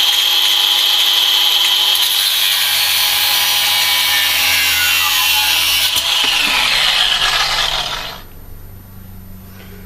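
Small power tool cutting through a steel M6 bolt: a continuous high-pitched grinding whine whose pitch drops under load about five seconds in, stopping suddenly about eight seconds in.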